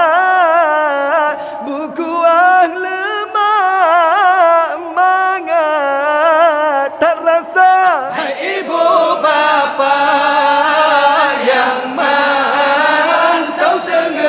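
A man sings an Acehnese sahur wake-up chant into a microphone, a long ornamented melody with a wavering pitch. About eight seconds in, a group of men's voices joins in.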